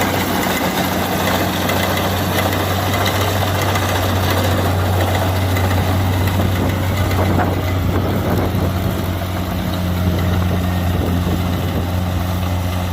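Kubota DC70 combine harvester running steadily: a constant low diesel hum under a dense, even mechanical rush.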